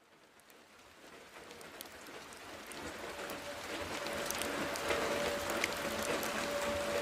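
Wood fire crackling and hissing, fading in from near silence, with scattered sharp pops. A faint steady tone joins about halfway through.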